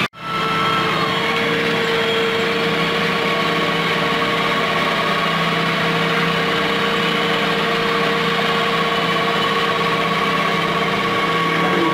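Antonio Carraro 10400 TTR tractor's diesel engine running steadily, heard from inside the cab, with a steady whine over it. The sound drops out for an instant at the very start.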